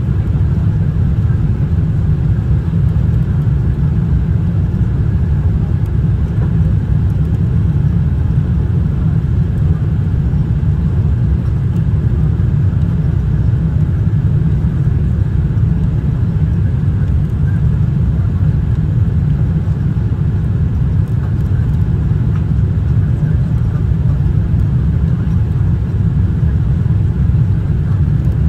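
Steady low rumble of cabin noise inside a Boeing 787-8 airliner: engine and airflow noise heard from a passenger seat, even and unchanging.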